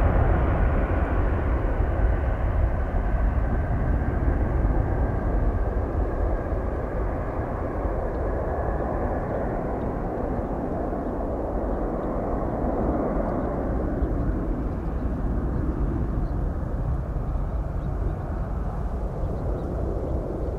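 An airplane's engines heard as it moves away: a steady rush of engine noise that slowly fades, with a few faint tones drifting down in pitch.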